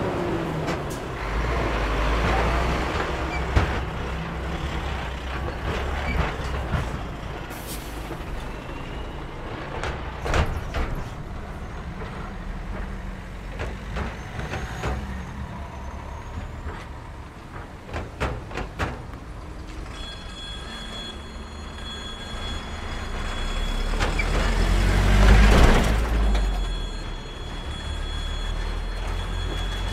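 Road traffic crossing a railway level crossing: a DAF XF lorry's engine rumbling past at first, then cars and lorries one after another, with sharp knocks as wheels run over the rails. A steady high whine comes in about two-thirds of the way through, and the traffic swells to its loudest shortly before the end.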